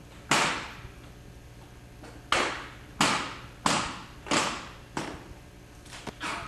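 Sharp smacks of drill rifles being caught and slapped during a precision rifle drill routine, each with a short echo. One comes just after the start, then a run of five at a steady pace, then a softer pair near the end.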